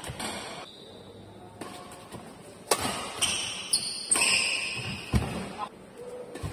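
Badminton rally: racket strikes on the shuttlecock, several sharp hits with the loudest about three, four and five seconds in, and court shoes squeaking on the floor between them.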